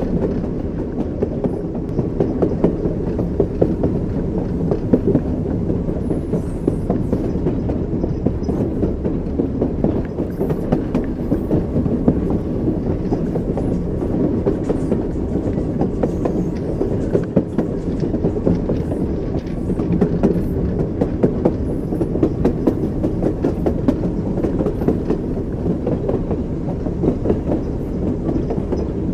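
Train wheels clacking over rail joints under a steady low rumble of a moving train.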